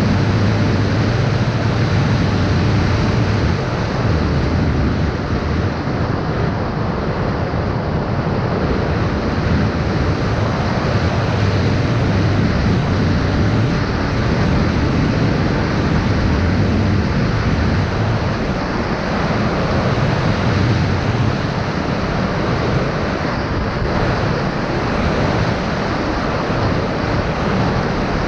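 Loud, steady rushing noise of wind on the microphone mixed with the drone of small electric motors and propellers, typical of a GoPro riding on an FPV quadcopter in flight.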